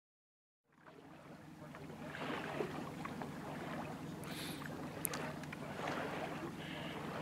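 A boat's motor running steadily with a low hum over a rushing noise of water. It fades in from silence just under a second in.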